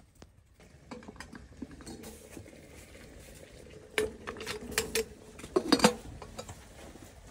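Enamel coffee pot being handled on a steel wood-stove top, its lid and body clinking against metal. Several sharp clinks come in the second half.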